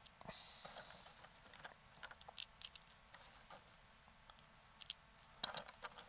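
Faint small clicks and taps as .25-calibre JSB King pellets are loaded one at a time into the AirMaks Katran's magazine, with a brief hiss about half a second in.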